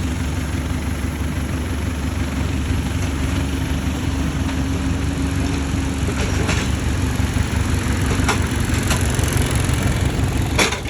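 Excavator diesel engine running steadily, with several sharp knocks or cracks over it in the second half; the loudest comes near the end.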